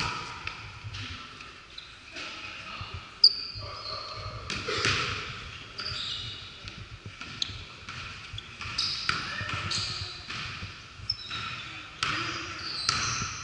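Basketball game sounds in a large gym: a basketball bouncing on the hardwood floor and short, high squeaks of sneakers on the court, the sharpest about three seconds in, echoing in the hall.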